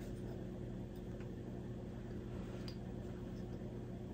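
A few faint snips of small scissors trimming ribbon tails, heard as light ticks over a steady low electrical hum.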